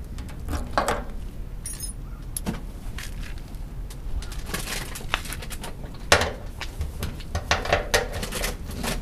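Light clicks and metallic clinks of hands working at the fuel pump fittings on top of a removed car fuel tank: plastic wiring connectors and metal fuel-line fittings being handled. The clicks come irregularly, thickening into quick clusters after the middle.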